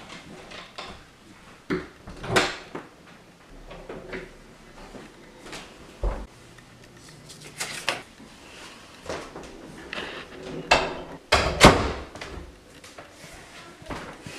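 Indoor handling noises: a door being opened by its lever handle, then footsteps and a paper envelope being handled, heard as a string of separate knocks and rustles, the loudest a little after the middle.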